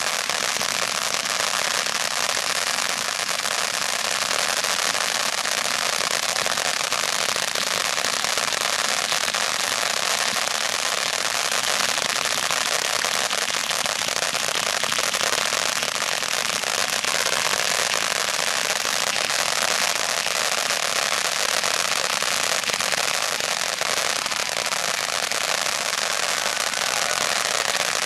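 Fireworks ground fountains spraying sparks with a steady, dense hiss and crackle.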